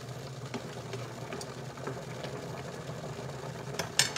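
Stovetop cooking with a steady low appliance hum, scattered light clicks of a utensil on a pan, and one sharp clink about four seconds in.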